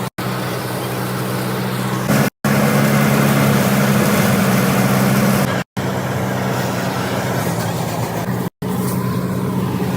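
Tractor engine running steadily, in several short clips joined end to end with brief silent breaks between them.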